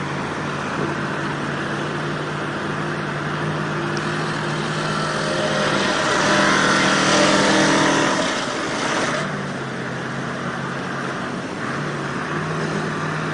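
A heavy truck's engine running steadily as it wades through a fast, flooded river, over the rush of the water; the rushing noise swells for a few seconds in the middle.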